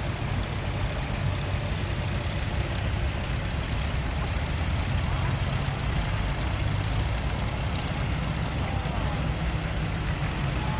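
Vintage Farmall tractor engines running steadily as the tractors drive slowly past, a continuous low rumble.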